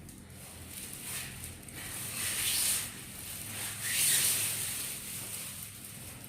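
TV packaging being handled by hand: irregular rustling and crinkling in uneven swells, loudest about four seconds in, over a faint low hum.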